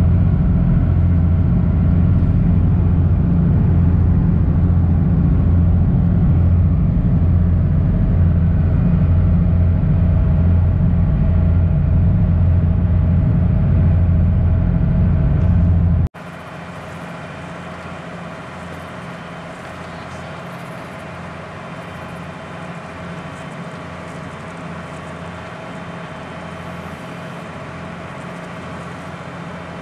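Engine of a small passenger ferry under way, a loud, steady, deep drone heard inside the cabin. About sixteen seconds in it cuts to a quieter steady engine hum with a hiss of water and wind over it.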